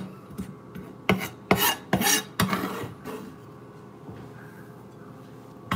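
Vegetable trimmings scraped and swept by hand across a kitchen counter: a quick run of short rasping scrapes and light knocks, then only faint room tone for the last few seconds.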